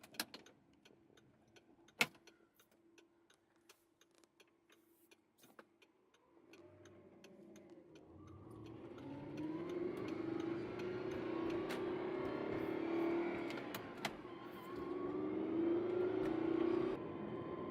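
Audi R8's engine, not yet warmed up, pulling away and accelerating from about eight seconds in, its pitch rising with a short dip near fourteen seconds as it shifts. Before that, only quiet with scattered sharp clicks.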